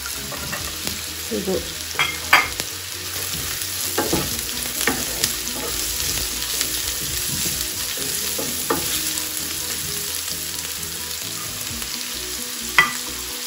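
Vegetables sizzling steadily in hot oil in a frying pan as julienned carrots and then shredded cabbage are tipped in and stir-fried with a wooden spatula, with a few sharp knocks against the pan.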